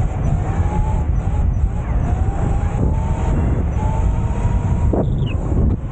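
A motorbike riding along beach sand. Its drive note is a thin whine that climbs slowly in pitch, under heavy wind buffeting on the microphone.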